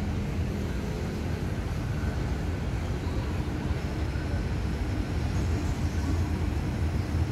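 Diesel locomotive of an approaching passenger train, a steady low rumble that grows slightly louder toward the end.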